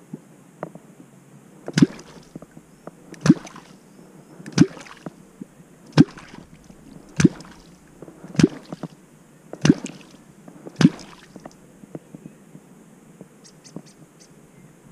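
A catfish clonk struck into the water eight times in a steady rhythm, a little over a second apart, each stroke a deep plop with a short splash. It is the call used to draw wels catfish up to the bait.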